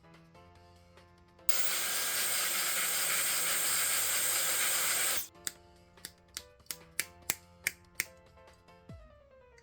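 Background music with a loud, steady hiss lasting nearly four seconds, followed by a quick run of sharp clicks.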